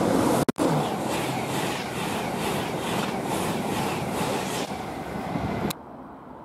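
InterCity 225 express train running through the station at speed close by: a loud rush of wheel and air noise with a regular clatter about twice a second as the coach bogies pass. It cuts off suddenly near the end, leaving a fainter distant rumble.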